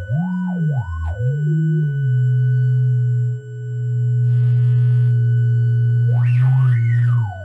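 Modular synthesizer oscillators sounding several sine tones at once, their pitches gliding up and down as the knobs are turned. They hold a steady low pair of tones for a few seconds, then near the end the upper tone sweeps high and wobbles.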